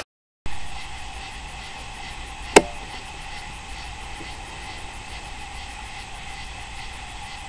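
Faint steady hiss with a light hum, and one sharp click about two and a half seconds in.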